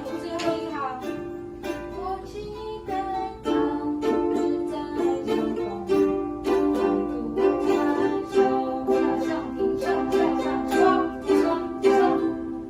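Ukulele played solo, chords strummed in a steady rhythm with a melody moving over them.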